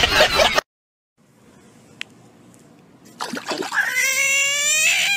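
A frog screaming its distress call while held in a hand. It is one long, loud wail of about two seconds that begins about three-quarters of the way in, with a short rustle of handling just before it.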